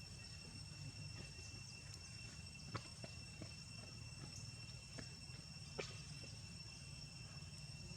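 Faint steady insect chirring, crickets, held on a few high pitches, over a low steady rumble, with a couple of sharp clicks about three and six seconds in.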